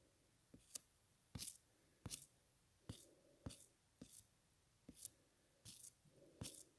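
Faint, irregular clicks and taps, about a dozen, from fingers tapping and swiping on a smartphone touchscreen, over near-silent room tone.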